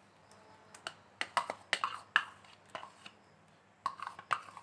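A spoon clicking and tapping irregularly against a nonstick pan as milk cream is stirred into thick custard, in two bunches of quick clicks.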